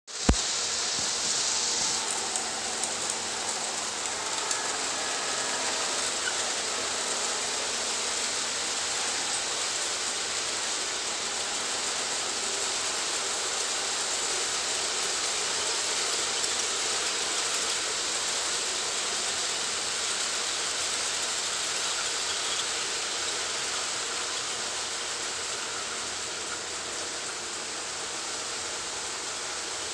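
Model coal train of hopper cars rolling along the layout track: a steady hiss of wheels on rail, easing slightly near the end. A sharp click right at the start.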